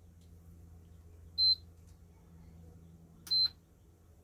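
Low steady hum from the treadmill-motor wire stripper running, with a short, high electronic beep about a second and a half in and again near the end, the second one with a click.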